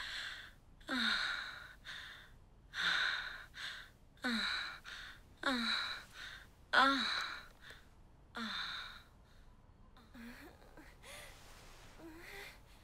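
An elderly woman's breathy, straining vocal sounds without words, each with a short falling voiced note. They come in pairs about every second and a half and grow softer after about nine seconds.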